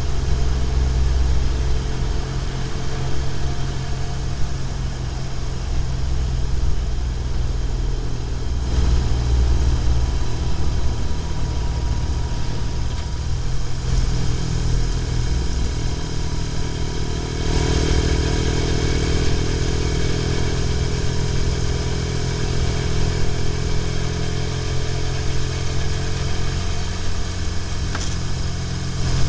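BMW R1150GS boxer-twin engine running steadily at road speed, with road and wind noise, heard from a camera mounted on the bike. A bit over halfway through, a brighter rushing sound with a hum comes in on top and stays.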